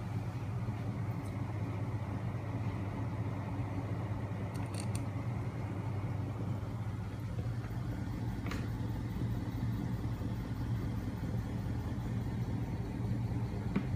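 Homemade magnet engine rig driven by a small 12 V electric motor, running steadily with its flywheels spinning: a continuous low mechanical hum, with a few faint clicks.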